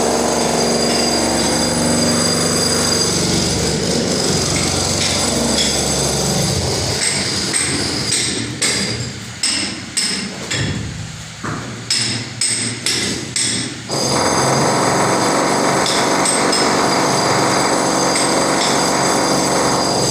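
A run of about a dozen sharp hammer blows, roughly two a second, from about halfway through for some six seconds. Before and after the blows a steady, loud machine-like noise runs.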